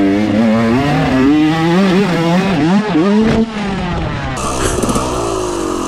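Dirt bike engine revving hard, its pitch surging up and down as the throttle is held open and wavers in a whiskey-throttle loss of control. About three and a half seconds in there is a sharp impact as the bike hits a tree, and the engine note then drops and slowly winds down.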